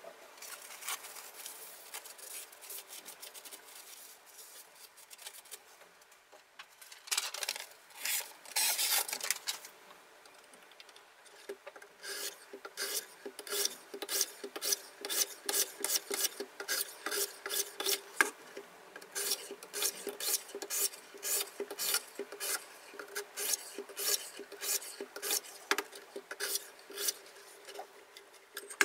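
Diamond sharpening stones of a KMFS Rival guided knife sharpener rasping along a steel knife blade in repeated strokes. The strokes are quieter and sparser for the first few seconds, then come louder and regular, about two or three a second.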